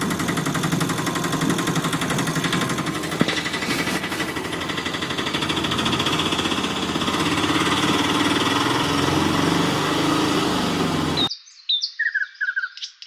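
A small motor runs steadily with a fast rattling pulse as it pulls the load. About eleven seconds in it cuts off abruptly and a few bird chirps follow.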